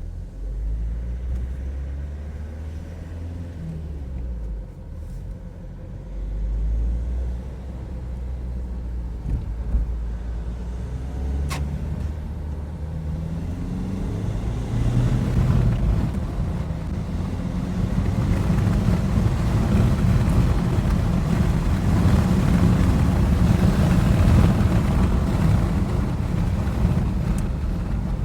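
SsangYong Korando engine running, pulling harder and getting louder from about halfway, with a knock under load that the owner suspects comes from the crankshaft pulley.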